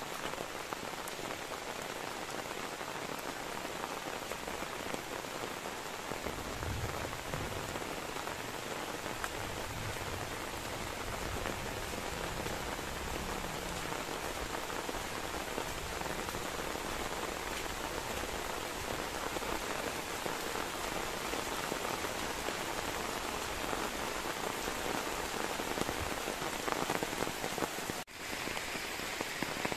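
Steady rain falling, an even hiss of drops on surfaces. It breaks off for a moment near the end and resumes.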